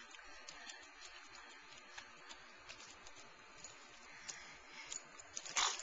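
Two large dogs playing on grass: faint pattering and scattered light clicks of their scuffling. A short, loud burst of noise comes near the end.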